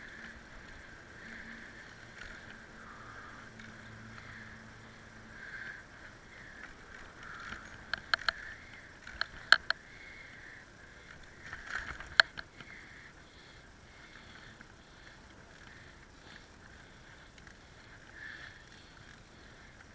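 Bicycle jolting over a broken, potholed track: a cluster of sharp knocks and rattles from the bike and its handlebar-mounted camera about halfway through. Underneath is a steady muffled rush of riding noise.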